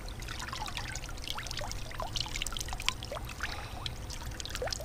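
Water trickling and dripping back into the pond as a large catfish is lifted out of it, a quick scatter of small drips and splashes.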